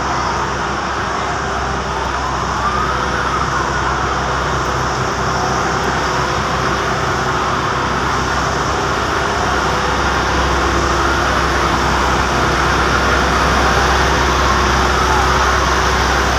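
An emergency vehicle's siren wailing, its pitch sweeping slowly up and down, over a steady engine drone and street noise.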